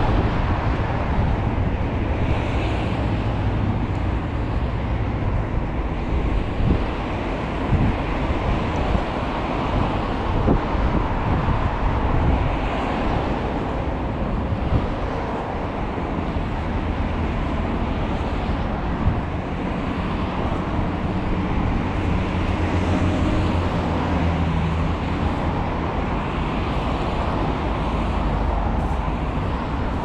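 Wind buffeting the microphone over the steady hum of road traffic, with small waves lapping against the sea wall.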